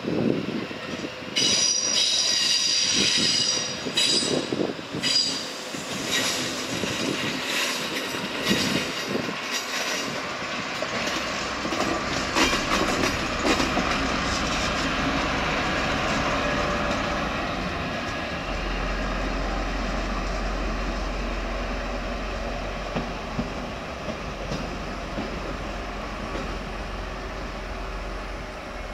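ÖBB class 2068 diesel-hydraulic shunting locomotive moving across the station pointwork: wheels squeal high and clack over rail joints and switches in the first several seconds, then the train noise runs on steadily. A steady low engine hum comes in partway through.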